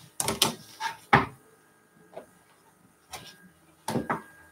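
Irregular short knocks and scrapes of an acrylic quilting ruler and rotary cutter being handled on a cutting mat, the loudest about a second in.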